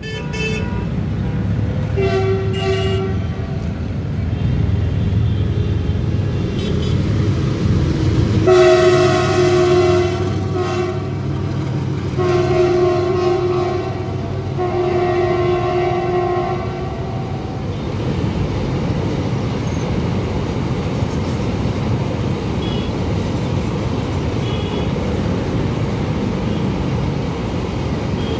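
Locomotive horn sounding about five blasts, some long, over the first half. Underneath and after, the steady rumble and clatter of a long rake of empty container flat wagons passing at speed.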